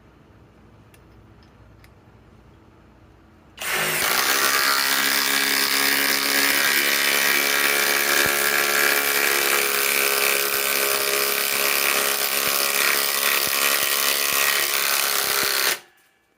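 Kobalt 24V Max brushless impact driver hammering continuously for about twelve seconds as it drives a long lag screw, then cutting off suddenly. The hammering is loud and steady, settling to a slightly lower, even pitch during its first second.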